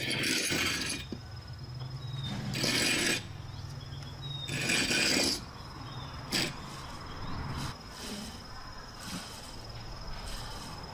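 Electric motor and alternator rig running: a steady low hum with a thin high whine. Three loud bursts of rushing noise in the first five seconds and a sharp click about six seconds in.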